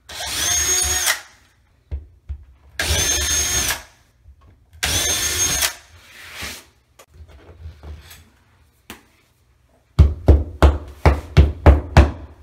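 Cordless drill boring pilot holes into drywall: three separate bursts, each about a second long with a steady high whine. About ten seconds in comes a quick run of about eight sharp hammer blows as drywall anchors are tapped into the holes.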